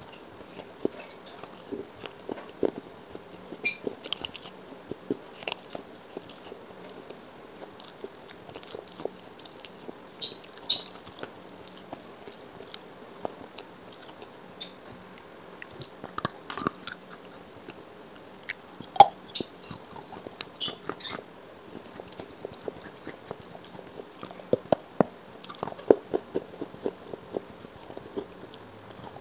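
Biting and crunching through pieces of small clay pots and saucers, with chewing between bites: irregular sharp crunches, the loudest about two-thirds of the way through and a quick run of them near the end.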